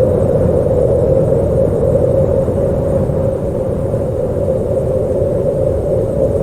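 Howling wind: a steady low rumble under a held howling tone that wavers slightly in pitch.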